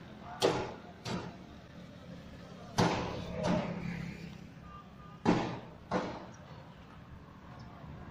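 Sharp knocks in three pairs, about two and a half seconds apart, over a faint low steady hum.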